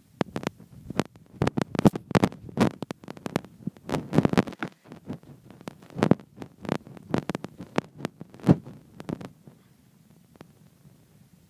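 A run of irregular knocks and thumps, several a second at times, that stops about nine and a half seconds in.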